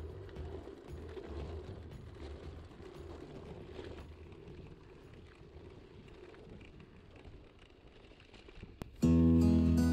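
A low, noisy rumble that fades slowly over several seconds, ending in a single click; then acoustic guitar music starts suddenly near the end.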